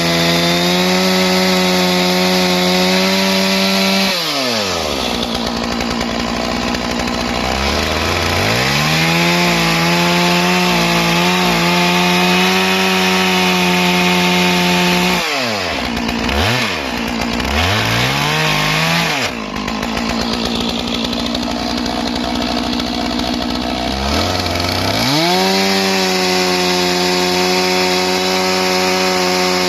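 Stihl MS 461 two-stroke chainsaw bucking logs: the engine runs at full throttle through a cut for several seconds at a time, drops back toward idle between cuts, and blips up and down a few times in the middle before the next cut.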